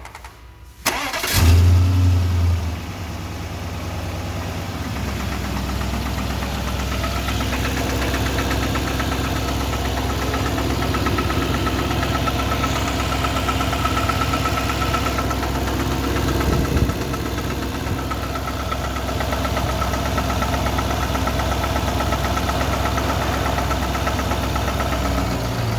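Volvo XC90's 4.4-litre V8 starting: it cranks and catches about a second in, flares up briefly, then settles to a steady idle with a knock, the fault the owner is listening for.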